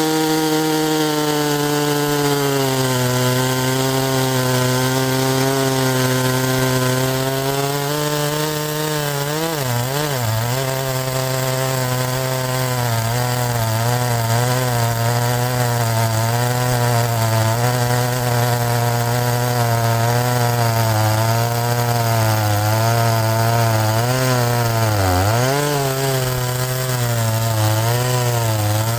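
Two-stroke chainsaw running at high revs while cutting through a log, its pitch sagging as the chain bites in and wavering with the load. The revs dip sharply for a moment about ten seconds in and again near the end.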